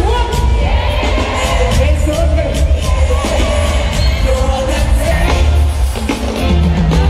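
Loud live concert music with a heavy bass beat and a sung vocal line over it.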